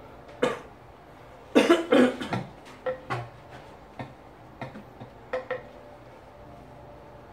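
Several short coughs from a person in a small room: a loud cluster about a second and a half in, then a few softer single ones.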